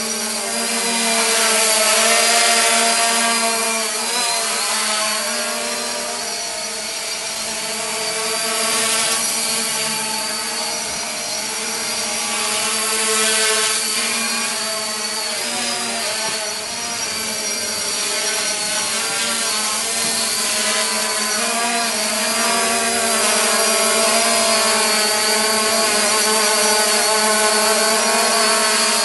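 3DR IRIS+ quadcopter hovering, its four electric motors and propellers buzzing with several pitches that waver up and down as the motors keep adjusting speed. It swells and fades slowly and is louder near the end as it comes closer.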